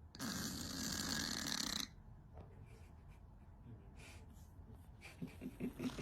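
A cat snoring: one long, loud, rasping snore lasting about a second and a half, then quieter breathing, and a quick run of short low snorts near the end.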